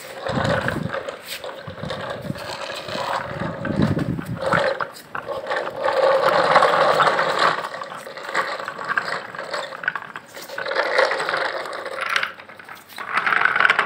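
Handmade wooden toy trucks' wheels rolling over a rough stone floor: a rattling, grinding scrape that comes and goes as the trucks are pushed about, loudest about halfway through.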